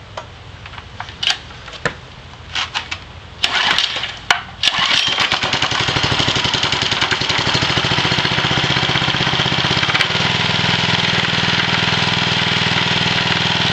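Small pull-start engine of a homemade belt-driven alternator generator being started: a few clicks and knocks, then two short bursts of cranking about three and a half and four seconds in. The engine catches at about five seconds and runs steadily, its sound changing to a lower, fuller running note about ten seconds in.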